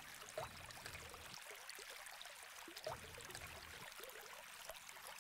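Faint trickling water with a few short bubbling blips.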